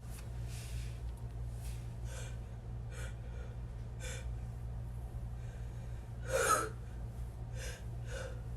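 A person sniffing and catching short, quick breaths between sneezes, with one louder sharp gasp about six and a half seconds in.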